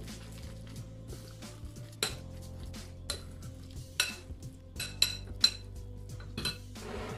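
Metal spoon stirring a wet mixture of grated cauliflower and egg in a glass bowl, scraping and clinking against the glass again and again. The clinks are sharpest and most frequent from about four to five and a half seconds in.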